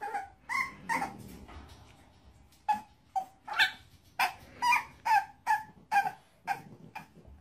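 A bulldog yapping in short, high barks: three near the start, a pause, then a steady run of about two a second.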